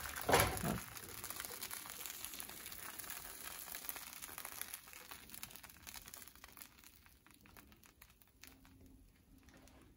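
Bánh xèo batter sizzling in hot oil in a frying pan: a brief loud burst just after the start, then a hiss that fades steadily to faint over several seconds.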